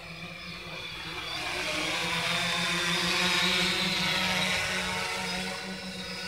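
3DR Solo quadcopter's motors and propellers buzzing with a high whine as it flies. It grows louder to a peak about halfway through as the drone comes close overhead, then eases off a little.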